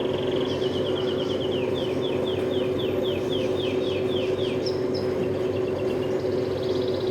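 Small pet-store cage birds chirping: a quick run of repeated falling chirps over a few seconds, then shorter high trills near the end, over a steady low hum.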